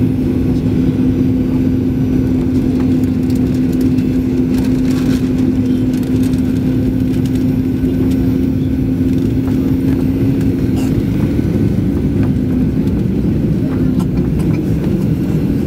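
Cabin noise of a Boeing 737-900ER on final approach, heard at a window seat beside the wing: its CFM56-7B turbofan engines and the airflow make a loud, steady, low rush with a steady hum that fades about eleven seconds in as the jet comes down over the runway.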